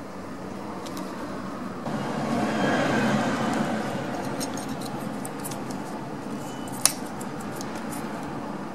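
Light clicks and rattles of small plastic and metal parts being handled as the idle air control valve and its wiring connector are worked loose from the throttle body, with one sharp click about seven seconds in. A steady background hiss runs underneath, swelling briefly about two to four seconds in.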